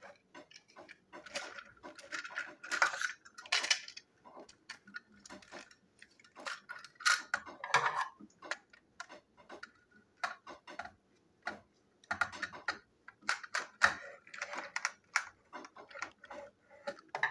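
Hard plastic clicks, taps and rubbing from a Plarail toy locomotive being handled, its body shell being fitted back onto the battery chassis. The clicks come at irregular intervals, with no motor running.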